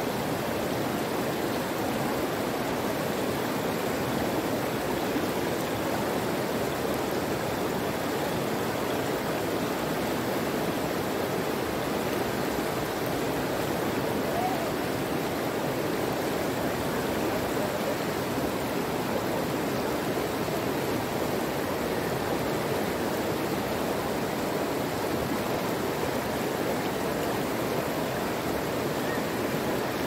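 Running water flowing steadily, an even sound without breaks or changes.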